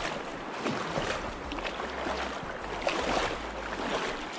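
A small hooked fish splashing and thrashing at the surface of a shallow creek as it is reeled in to the bank, in irregular short splashes over the steady rush of the flowing water. Wind buffets the microphone on and off.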